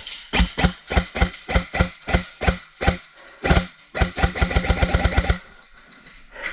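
Airsoft electric gun (AEG) firing: a string of single shots about three a second, each with the short whir of the gearbox motor, then a rapid full-auto burst of about ten shots a second that stops about five and a half seconds in.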